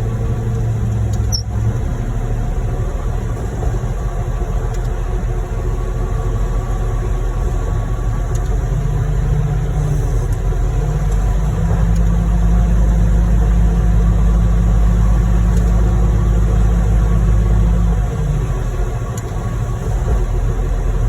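Heavy diesel engines of a concrete pump truck and ready-mix truck running steadily while concrete is pumped. The engine note climbs higher and louder from about nine seconds in and drops back near eighteen seconds.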